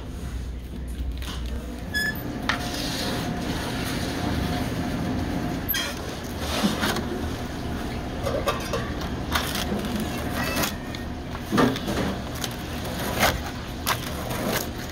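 Cheese pizza being sliced in its cardboard box with a rolling pizza cutter: a run of short, irregular crunching and crackling strokes as the wheel cuts through the crust, over a steady restaurant background hum.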